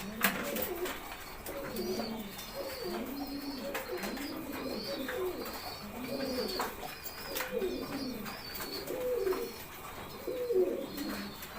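Domestic pigeons cooing in the loft, low rising-and-falling coos one after another about once a second, with faint high chirps above them and a few light clicks.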